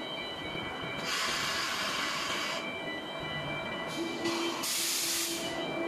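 Fiber laser tube cutting machine running, with a steady high machine whine. Hissing bursts come about a second in, lasting over a second, and again near the end. A lower motor hum starts about four seconds in as the chuck carriage travels along the bed.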